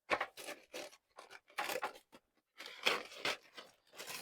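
Plastic packaging being handled and opened by hand: a run of short, irregular crinkling and tearing noises.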